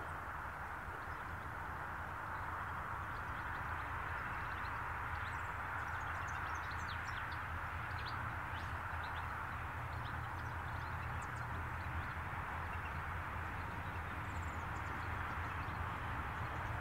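Diesel-electric locomotives of a freight train (an 81 class leading a G, XR and X class) running slowly, a steady low engine rumble that grows a little louder after a few seconds. Small birds chirp repeatedly in the middle.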